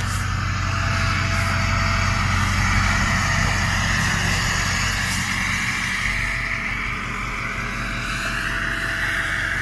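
Ford 6.0 Power Stroke turbodiesel V8 idling steadily, with a whistle from its KC Stage 2 variable-geometry turbocharger that wavers and rises a little near the end.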